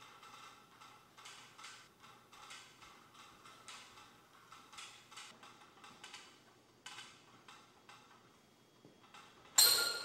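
Faint ticking, a few clicks a second, then a single sharp, loud clank with a short ring near the end.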